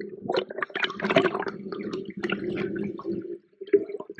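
Water sloshing and crackling around a camera held underwater on a shrimp net pushed through shallow sea water, with a steady low hum that stops about three and a half seconds in.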